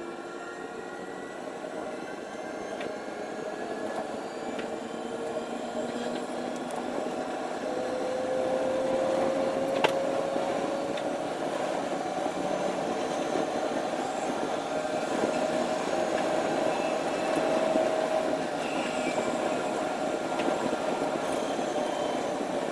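Electric train running on the rails, heard from the driver's cab: a steady rolling rush with a faint whine that slowly rises in pitch. The sound grows louder over the first several seconds, and there is a single sharp click about ten seconds in.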